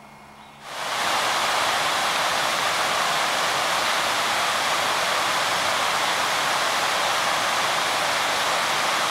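Small woodland stream cascading over rocks, a steady rushing of water that comes in suddenly about a second in.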